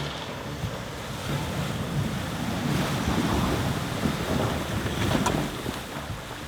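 Rushing, splashing river water with wind buffeting the microphone, swelling louder in the middle.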